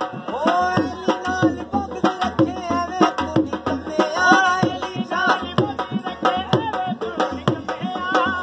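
Qalandari dhamal music: fast, driving hand-drum strokes with an ornamented, wavering melody line over them.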